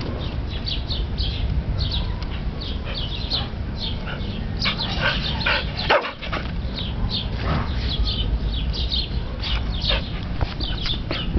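Dogs barking and yipping repeatedly in short high calls, with one fuller bark about five seconds in, over a steady low rumble.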